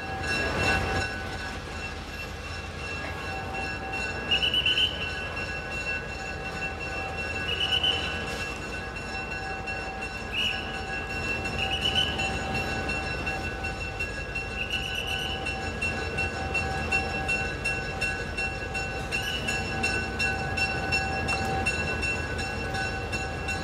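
Diesel-electric locomotive rumbling as it rolls slowly up to the crossing. Over it a level-crossing warning sounds steadily throughout, with short high chirps every few seconds.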